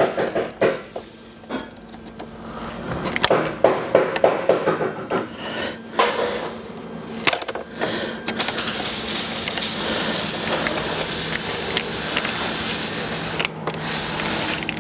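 Clicks, knocks and rattles of plastic and metal parts as a car's front-end hoses and connectors are pulled apart by hand. About eight seconds in, a steady hiss starts and runs for several seconds, then stops suddenly.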